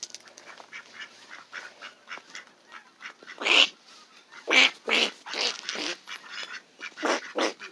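Several mallard ducks quacking. The quacks are soft and scattered at first, then about seven louder, short quacks from about three and a half seconds in.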